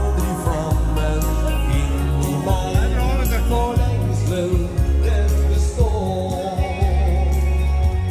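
Live dance band music: electric keyboard and electric guitar over a steady bass line and beat, with a man singing.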